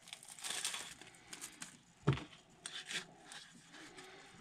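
Handling noises of a knife being unpacked: faint rustling of its packaging and small clicks, with one louder knock about two seconds in.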